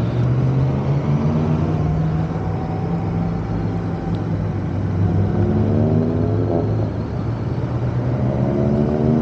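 Motorcycle engine running under way, with wind and road noise: the revs climb about five seconds in, drop back near seven seconds, and climb again near the end.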